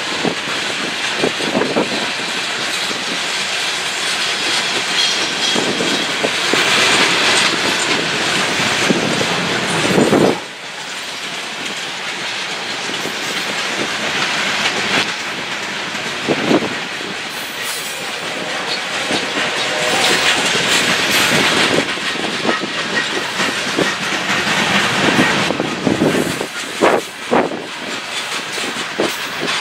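Loaded coal hopper cars of a freight train rolling past: a continuous wheel-on-rail rumble with scattered clicks and knocks as the wheels pass over the track.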